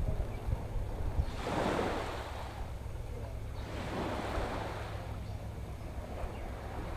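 Small waves washing onto a beach, the hiss swelling and fading about three times, over a steady low rumble of wind on the microphone.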